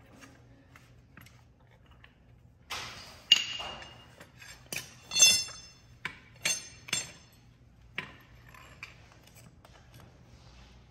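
Metal clinks and clanks from tools and a steel shock absorber strut being handled, several sharp strikes between about three and eight seconds in, some ringing briefly, the loudest about five seconds in.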